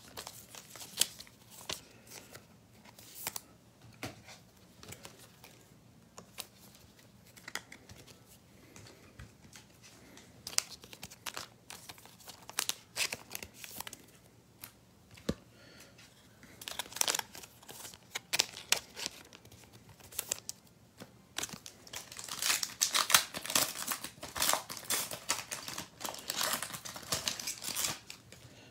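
A trading-card pack wrapper being crinkled and torn open, with scattered crackles that turn into a dense, louder crinkling in the last several seconds.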